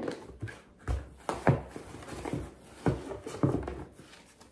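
A cardboard shoebox is opened and the thin white wrapping inside is rustled and pulled out. It makes irregular crinkles and soft knocks, with a few sharper ones.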